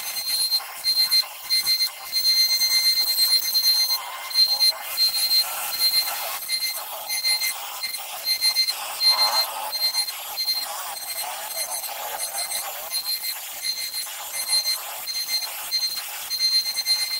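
CNC router spindle cutting a fibreboard sheet: a high-pitched whine with overtones that breaks on and off rapidly over a hiss of cutting noise, the audio sped up along with the 6x picture.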